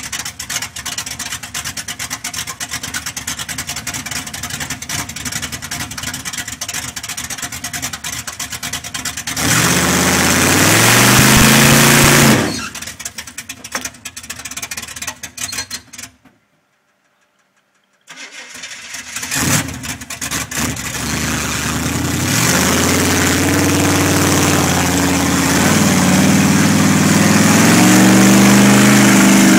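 Engine of a lifted, mud-tyred square-body GM pickup bogging in deep mud. It runs with a fast, rough clatter for about nine seconds, revs hard with rising pitch, then drops away. After a two-second gap of silence it revs up again and holds high as the truck drives off.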